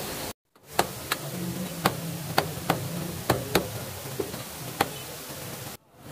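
About nine sharp, irregularly spaced knocks over a low steady hum, with the sound dropping out briefly near the start and again near the end.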